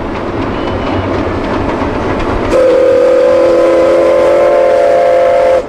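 Train sound: rattling wheels on rails, then about two and a half seconds in a train whistle sounds one long chord for about three seconds and cuts off suddenly.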